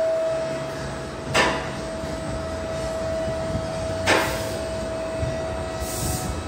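Sharp knocks, two of them about two and a half seconds apart, each with a short ringing tail, over a steady low hum and a thin steady tone that fades near the end.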